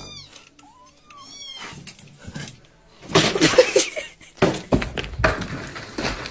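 Cat meowing: two short, high-pitched meows in the first second and a half, then louder, rougher sound about three seconds in.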